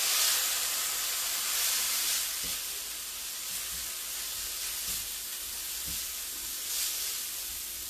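Shredded jackfruit sizzling in a hot skillet as it is stirred with a spatula, just after a splash of tamari hit the pan: a steady hissing sizzle, strongest in the first two seconds.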